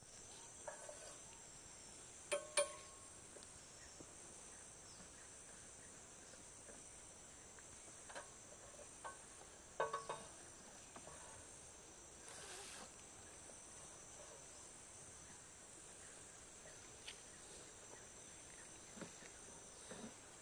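Faint steady high-pitched insect chorus, with a few scattered sharp clicks and knocks, the loudest about two and a half seconds in and again around ten seconds in.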